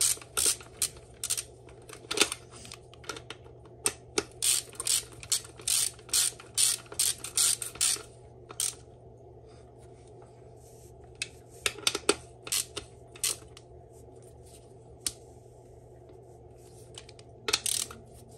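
Hand ratchet with a 10 mm socket clicking in short back-and-forth strokes, about two a second, running bolts down into a Honda B-series transmission case. The clicking stops about nine seconds in, with a few more strokes around twelve seconds and near the end.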